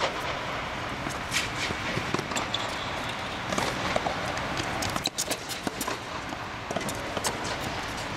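Tennis ball being hit back and forth with rackets and bouncing on a hard court: a series of sharp pops about a second apart over steady background noise.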